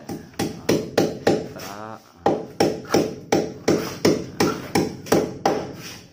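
Claw hammer driving nails, a steady run of about three sharp strikes a second, each with a short ring, with a brief pause about two seconds in. The nails fix the lugs of an aluminium window frame to the wall.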